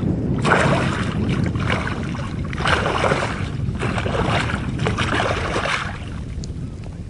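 A hooked pike thrashing at the water's surface, throwing up splashes in several bursts that ease off near the end, over a steady low wind rumble on the microphone.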